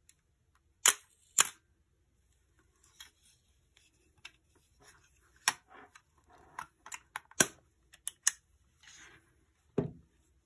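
Sharp mechanical clicks from a Nikon F3 35mm SLR body being handled and worked, two loud ones about a second in and several more spread through, with soft rubbing and handling noise between. Near the end comes a duller knock as the camera is set down on a wooden table.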